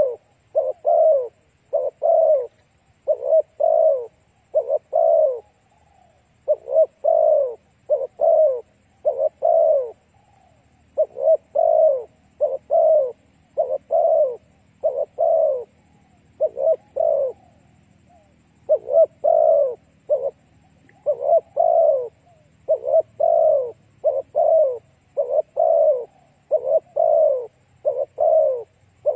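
Spotted dove cooing over and over, in phrases of two to four coos separated by short pauses.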